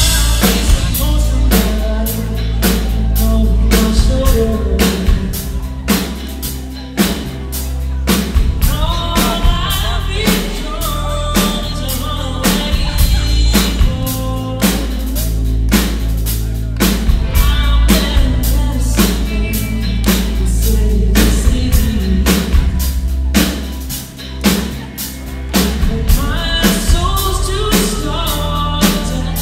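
Rock band playing live, amplified through the venue's system: a steady drum-kit beat of about two strikes a second over heavy booming bass and electric guitar, with a lead vocal singing in phrases.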